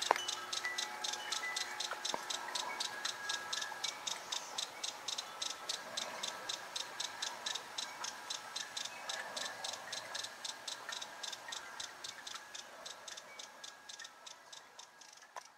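Amazilia hummingbird singing a long series of sharp, high ticking notes, about four a second, which gradually slow and fade toward the end.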